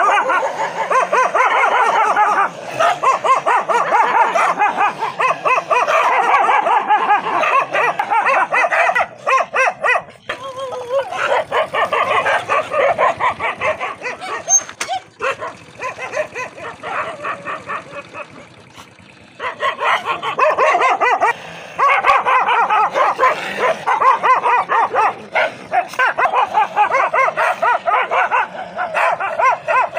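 Dogs barking aggressively in a face-off, rapid barks coming almost without pause. There is a quieter stretch past the middle, then the barking is loud again.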